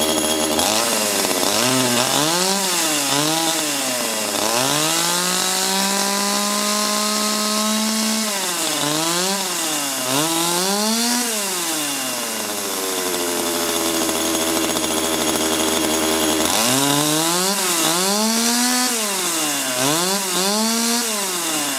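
Small chainsaw engine revving: a few quick throttle blips, then held at high revs for a few seconds, then more quick blips. It drops back to a steady idle for a few seconds in the middle before revving in quick blips again.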